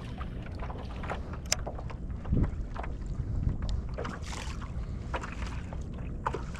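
Kayak moving on open water: wind on the microphone rumbles steadily, water washes against the hull, and there are scattered light clicks and knocks from gear on the boat.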